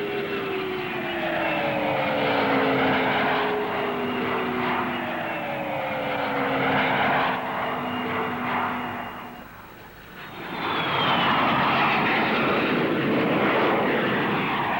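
A Trident airliner's three rear-mounted Rolls-Royce Spey bypass jet engines passing in a flypast: a loud jet rush with whines that fall in pitch as it goes by. The sound dips about ten seconds in, then swells again with another falling whine.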